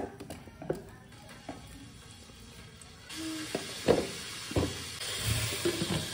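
A silicone spatula scraping chilli-sauced eggs from a frying pan into a plastic container, with small knocks and scrapes, then a plastic lid knocked and pressed onto the container a few times. A steady hiss sets in about three seconds in.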